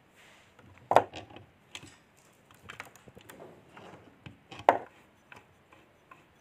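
Motorcycle gearbox in an open crankcase being worked by hand: metal clicks and clunks as the shift fork moves the gears in and out of engagement. Two sharp loud clicks, about a second in and again about three and a half seconds later, with lighter clicks and rattles between.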